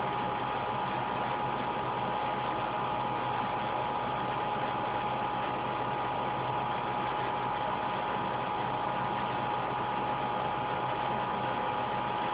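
Steady background hiss with a faint constant hum and whine, unchanging throughout; no distinct event stands out.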